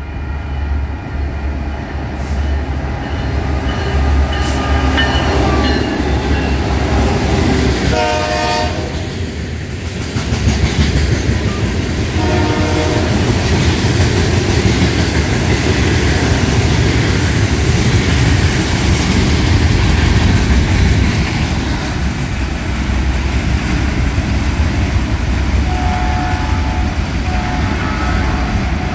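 Union Pacific freight train passing through: the locomotive's horn sounds several blasts in the first seconds, loudest about eight seconds in and again around twelve seconds, then the steady rumble and clatter of covered hopper cars rolling past for the rest of the time.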